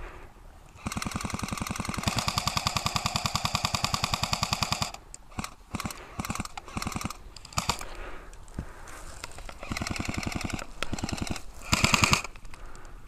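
Airsoft guns firing on full auto. One long burst of rapid, evenly spaced shots runs for about four seconds, then come shorter bursts and scattered single shots, with the loudest burst near the end.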